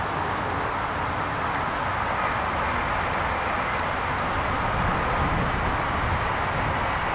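Steady outdoor background noise: a continuous rushing hiss over an uneven low rumble, with a few faint, short bird chirps now and then.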